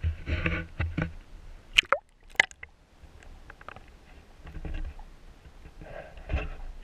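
Action camera going under shallow water: splashing and gurgling as it enters, two sharp clicks about two seconds in, then quieter muffled bubbling and sloshing heard underwater.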